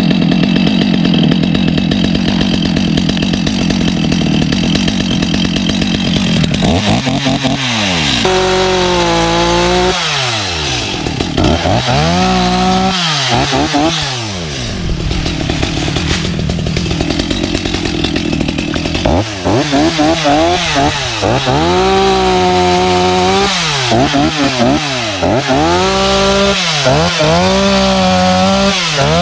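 Two-stroke chainsaw running, steady at first, then from about seven seconds in its engine pitch repeatedly climbing and sagging as the saw is revved and bites into wood, cutting a log.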